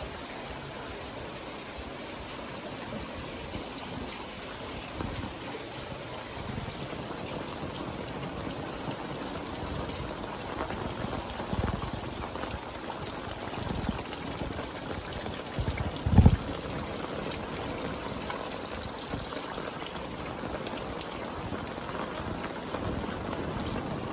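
Heavy rain falling steadily. A few brief deep thuds stand out, the loudest about sixteen seconds in.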